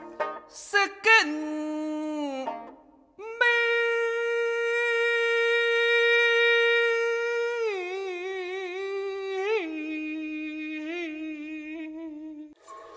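Music: a wordless voice humming a slow melody in long held notes, sliding between pitches with a wavering vibrato. After a short break about three seconds in, one note is held for about four seconds, then slides down to lower notes.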